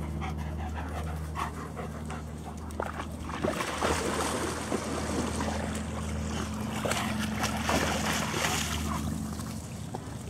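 German Shepherd dogs panting and moving about, with splashing through shallow pond water from about three to nine seconds in.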